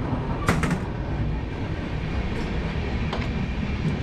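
Passenger train coach running on the track with a steady low rumble. About half a second in there is a sharp metal knock as the dustbin's swinging flap falls shut.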